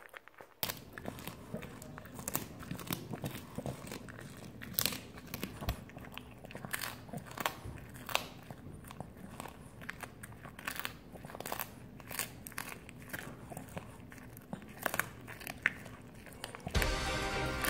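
A dog chewing food, with irregular sharp clicks of its teeth over a steady low hum. Music starts about a second before the end.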